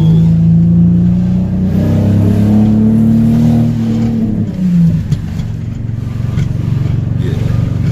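Nissan 350Z's 3.5-litre VQ35 V6 engine running while driving; it rises in pitch about two seconds in and drops back a little after four seconds, then settles lower. The engine has an intermittent misfire that the owner is still diagnosing, and it is running only a little better after a new battery, plugs and coil packs.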